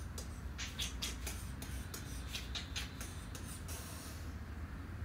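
A run of light clicks and scratchy rustles, the sound of something being handled, over a steady low hum. A soft hiss ends about four seconds in.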